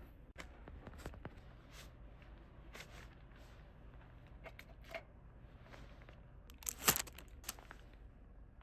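Faint scattered clicks and scrapes, with a sharper cluster of clicks about seven seconds in.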